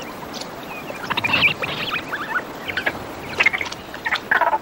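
Clusters of short, high chirping animal calls, several times over, above the trickle of water; the loudest cluster comes near the end.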